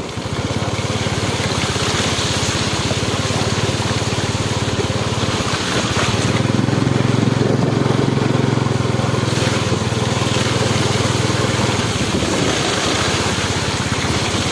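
Small motorbike engine running steadily while the bike rides through shallow floodwater, with the tyres swishing through the water and wind on the microphone. The engine note strengthens for a few seconds in the middle.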